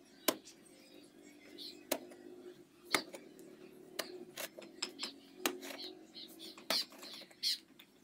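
Short-handled digging hoe chopping into hard, dry clay soil. It strikes in sharp, irregular blows, roughly one a second, with clods breaking loose.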